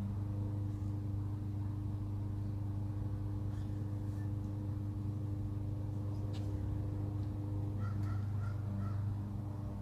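Steady low machine hum, like a motor or engine running, with a few faint clicks. Four short bird calls come near the end.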